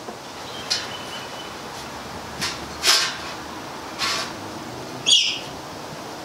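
Five-week-old White Swiss Shepherd puppies moving about a metal food bowl: a handful of short, separate noises over a steady hiss, the last and loudest a brief high squeak.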